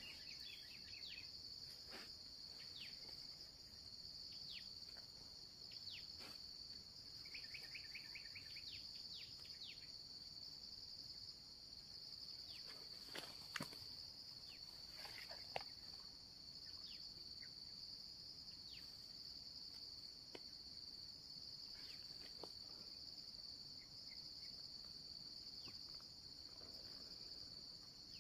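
Steady high-pitched drone of a forest insect chorus, with a short chirping trill near the start and again about eight seconds in. A few sharp clicks or knocks stand out about halfway through.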